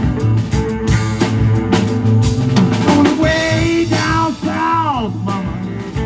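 Blues-rock band playing an instrumental passage: a steady drum-kit beat and bass under a lead line that bends and slides down in pitch about midway through.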